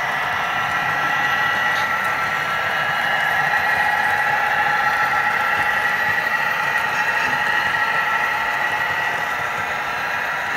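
HO scale model freight train running past on its track: a steady mechanical whir with a faint high whine as the last cars roll by.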